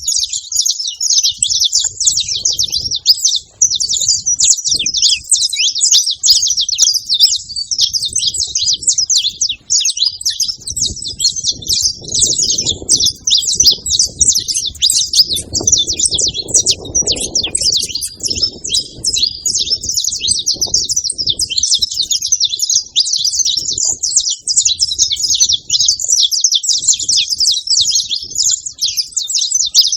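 Several saffron finches chirping and twittering continuously, a dense, busy run of fast high notes overlapping one another.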